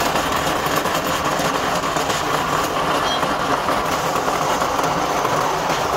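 Drill press running steadily, its bit cutting into a steel gear held by hand.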